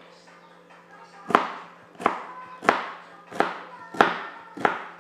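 Kitchen knife chopping celery stalks on a cutting board: six sharp, evenly paced chops about two-thirds of a second apart, starting about a second in.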